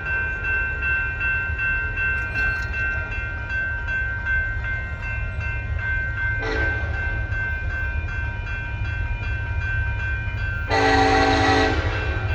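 Union Pacific freight train passing with a steady low rumble and a steady high ringing tone. The locomotive's air horn sounds a short blast about six and a half seconds in and a longer blast of about a second near the end.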